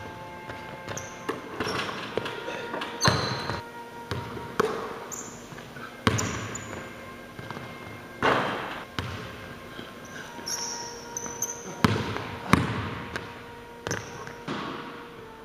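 Basketball bouncing on a hardwood gym floor: loud, echoing bounces at irregular intervals as the ball is dribbled, shot and rebounded.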